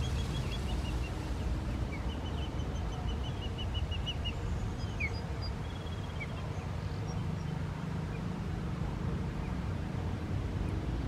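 Osprey calling: runs of short, high whistled chirps, about five a second, during the first half and fading out by the middle. A steady low rumble continues throughout.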